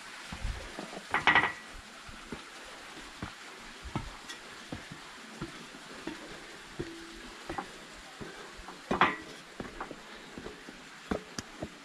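Scattered clicks and knocks over a steady hiss, with two louder clatters, one about a second in and one near nine seconds.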